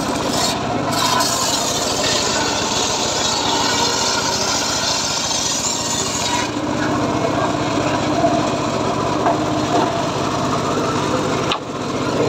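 Large circular saw blade on a homemade saw bench ripping along a plank of old teak: a continuous, loud cutting noise with the saw's drive running underneath. The level dips briefly near the end.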